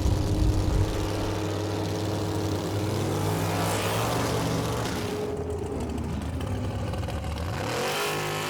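Drag racing car engine running, its pitch shifting a few seconds in and rising again near the end.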